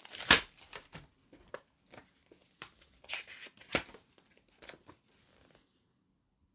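Paper rustling and crackling as a folded instruction sheet is opened and handled: a run of short, crisp rustles, loudest just after the start and again around three to four seconds in, stopping about five and a half seconds in.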